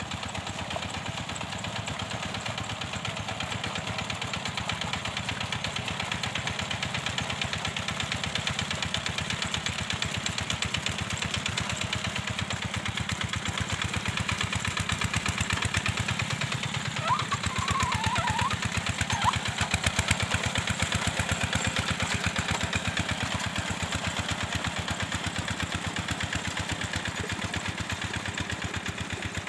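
Two-wheel hand tractor's single-cylinder diesel engine running steadily as it ploughs and puddles a flooded rice paddy, with an even, rapid beat of firing strokes.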